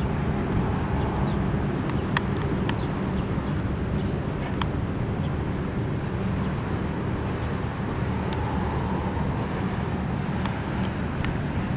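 Norfolk Southern freight train of tank cars rolling past: a steady low rumble of wheels on rail, with a few sharp clicks scattered through.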